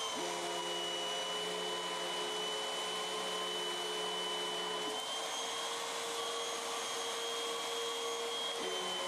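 Hoover Windtunnel MAX Performance Pet UH72625 bagless upright vacuum cleaner running steadily with a high whine. A lower hum from the belt-driven brush roll stops about five seconds in and comes back near the end, as the brush disengages and re-engages.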